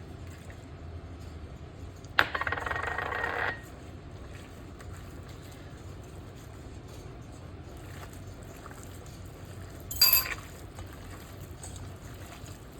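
Milk poured into a mixing bowl for about a second and a half, followed later by a single sharp clink.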